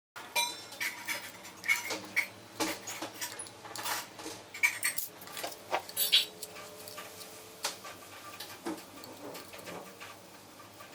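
Irregular small clicks, taps and clinks of a screwdriver and tiny screws working against metal drive brackets, as the side brackets are screwed onto an SSD.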